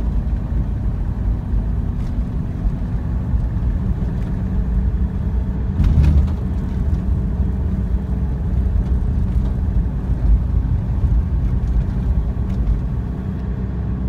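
Car on the move: a steady low rumble of engine and tyres on the road, with a brief louder bump about six seconds in.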